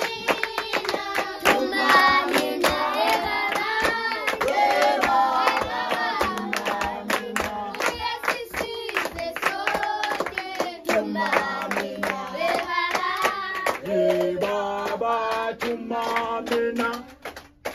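Children singing a hymn together, with hand clapping on the beat. The singing and clapping stop just before the end.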